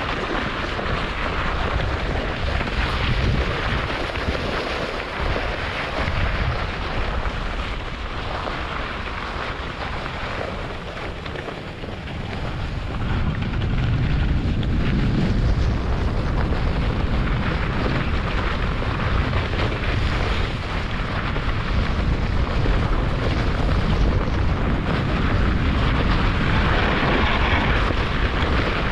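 German Luge 115 sled running down a snow track: a steady scraping rush of the runners over snow, mixed with wind buffeting the action camera's microphone. It gets louder a little under halfway through.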